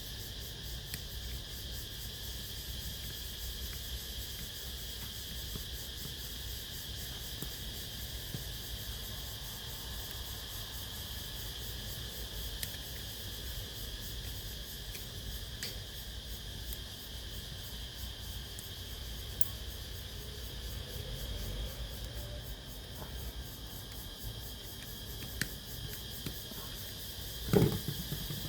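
Cassette player running, with a steady high hiss and whine and a low hum. A few faint isolated clicks sound, and a louder knock comes near the end.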